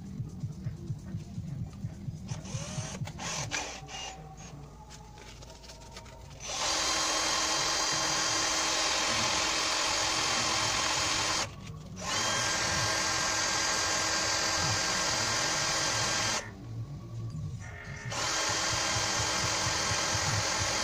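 Cordless drill running at steady full speed with a small sanding attachment in its chuck, in three runs of about five, four and three seconds with short pauses between them. Before the first run only faint background music is heard.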